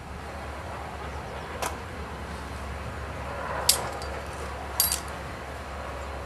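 A few sharp knocks from demolition work on a rickety wooden outhouse, over a steady low background hum. The two loudest knocks come about a second apart near the middle.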